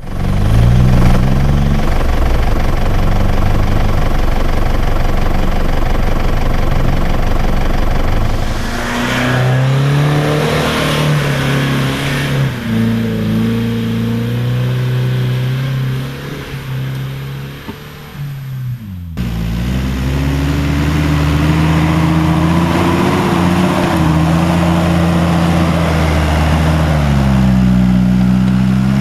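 Motor vehicle engine running and revving, its pitch rising and falling with throttle and load. There is an abrupt cut about 19 seconds in, after which the engine drones more steadily.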